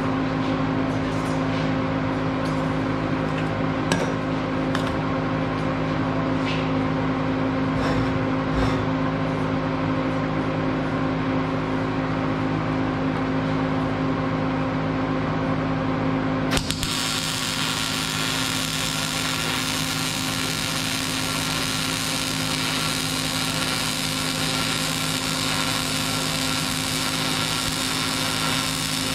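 Steady machine hum with a few light knocks as the welding gun is set on the steel pipe; about halfway through, a MIG (wire-feed) welding arc strikes suddenly and runs steadily with a continuous hiss as a weld is laid.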